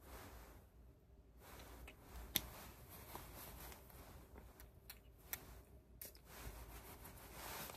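Faint handling of a small glass perfume bottle: the cap comes off and is handled with small clicks and taps, the sharpest about two and a half seconds in, along with short hissing spritzes of the atomizer onto the wrist.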